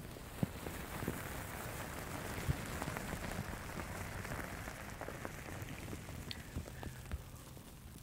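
Paper tissues rubbed and crumpled against the ears of a binaural microphone: a close, steady rustling dotted with small crinkles and clicks.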